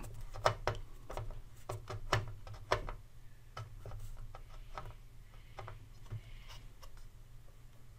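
Faint, irregular clicks and ticks of a screwdriver turning a small screw into the metal retainer clip that holds a radio's dial glass. The clicks come thickest in the first three seconds, then thin out.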